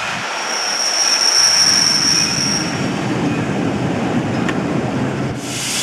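Vintage railway passenger coaches rolling slowly along a platform, with a steady high wheel squeal for about two seconds and a low rumble from the wheels. Near the end, a loud hiss of steam starts abruptly.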